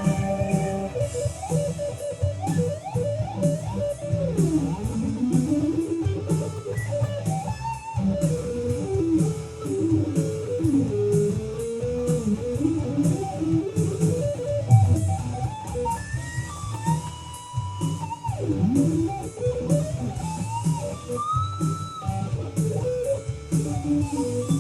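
Rock music: an electric guitar lead line with string bends and slides, over a steady drum beat and rhythm guitar.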